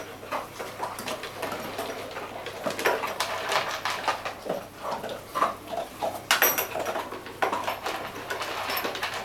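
A dog eating leftover food from the bowls, with irregular chewing, crunching and licking and the bowls clinking and scraping.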